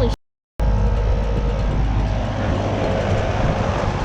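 2009 2-ton Carrier Comfort 15 air conditioner running in cool mode, its condenser fan and compressor making a steady low rumble while the unit is frozen over, which the owner takes for a refrigerant leak. The sound cuts out for about half a second near the start.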